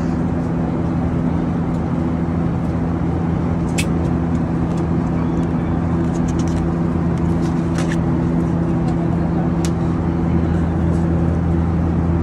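Airliner cabin noise: a steady rush of engine and airflow with a constant low hum. A few short clicks and rustles come from the paper menu being handled and its page turned.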